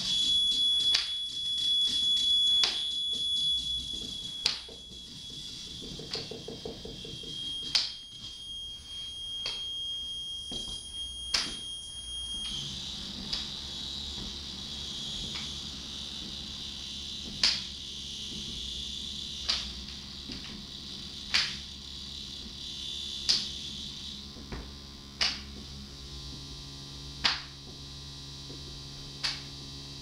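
Electronic noise from a performer's rig: a steady high-pitched tone like an alarm beep for about twelve seconds, then an abrupt switch to a hissing high drone over low steady hum tones. Sharp cracks cut through throughout, irregular at first, then about one every two seconds.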